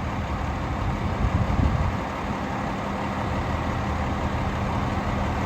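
Heavy engines running steadily at a low hum, the low rumble swelling louder for a moment between one and two seconds in.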